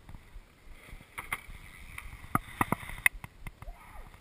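Mountain bike rolling down a dirt trail, with a run of sharp knocks and rattles from the bike and the mounted camera over the bumps.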